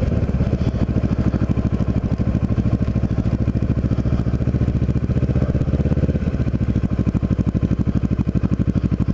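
Kawasaki Ninja 650R's parallel-twin engine running as the bike rolls slowly, with an even pulsing beat; the tone shifts slightly about six seconds in.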